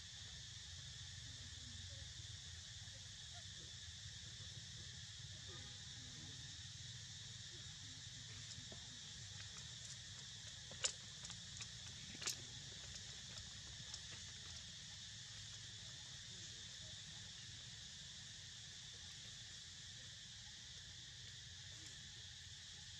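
Faint, steady insect chorus of crickets or similar insects trilling, with two sharp clicks about halfway through.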